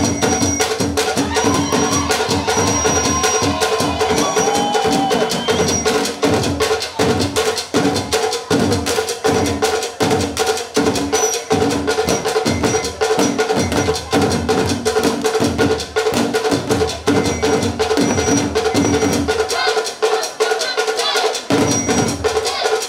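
An ensemble of tall standing wooden drums beaten with sticks, playing a fast, dense rhythm. The deep drum strokes stop for about two seconds near the end, then come back in.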